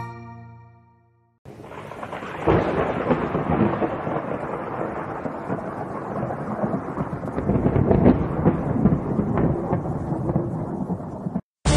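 Thunderstorm sound effect: a steady wash of rain with rumbling thunder and crackles. It starts about a second and a half in and cuts off suddenly near the end.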